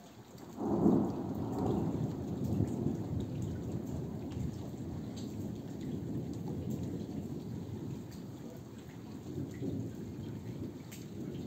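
Thunder: a sudden clap a little under a second in, then a long low rolling rumble that slowly fades, swelling again briefly near the end. Raindrops tick faintly throughout.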